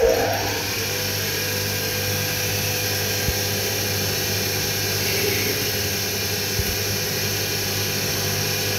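Mini CNC wood-turning lathe running, its spindle and chuck spinning at speed with a steady motor hum and hiss.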